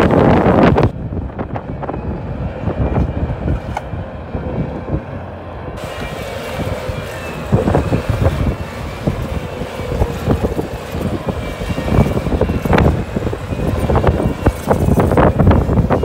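Bobcat compact track loader's diesel engine running under load as the machine pushes and reverses through loose dirt, with repeated clanks and knocks from the tracks and bucket.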